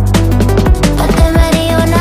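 Background music with a deep, sustained bass and a steady beat, no vocals.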